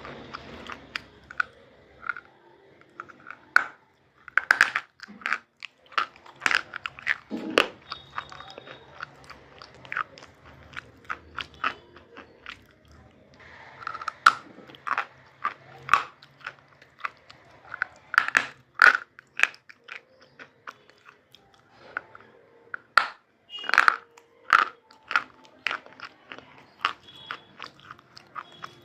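Close-up biting and chewing of hard, brittle pieces: irregular sharp crunches, some in quick clusters, throughout.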